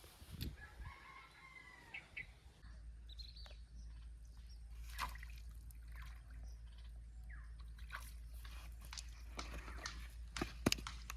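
A rooster crowing once, faintly, near the start. It is followed by scattered small clicks and taps that come more often toward the end.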